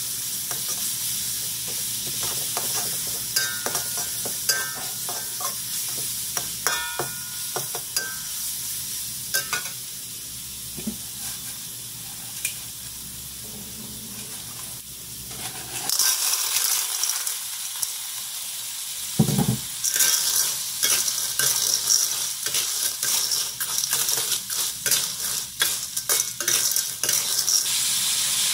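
Ginger and chili sizzling in oil in a steel wok, with a metal spatula scraping and tapping the pan. About halfway through, the sizzling grows louder and a busy clatter of clam shells being stir-fried takes over.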